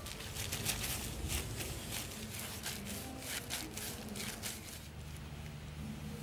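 Thin plastic food-prep gloves crinkling and squishing as hands knead and squeeze a ball of soft dough: a quick, irregular run of rustles that thins out about five seconds in, over a steady low hum.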